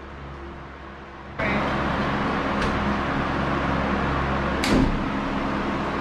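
A low hum, then, about one and a half seconds in, a steady machine-like rushing drone comes in abruptly and holds, with a faint tick and, near the end, a sharp knock.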